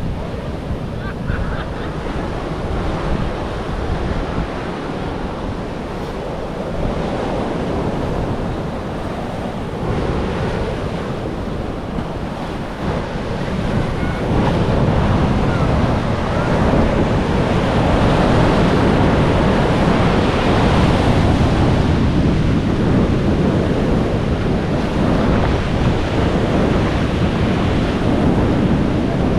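Ocean surf breaking and washing on a beach as a continuous rush, with wind buffeting the microphone. It grows louder about halfway through.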